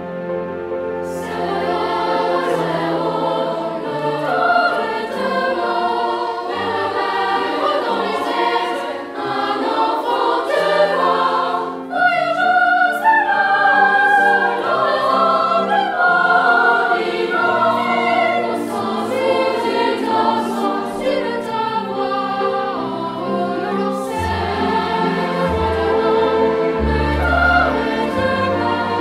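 Background music: a choir singing with instrumental accompaniment and a steady bass line.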